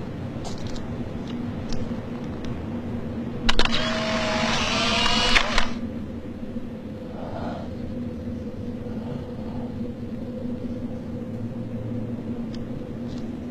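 A camera's shutter clicks, followed by about two seconds of motor whirring, over a steady low hum on the soundtrack.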